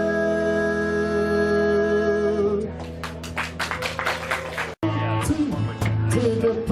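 Live band holding the final chord of a song, followed by a couple of seconds of audience clapping. About five seconds in the sound cuts off abruptly and the band is heard mid-song in the next number, with guitar, bass and singing.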